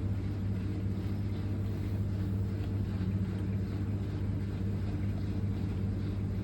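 A steady low mechanical hum, unchanging throughout, like a motor or machine running.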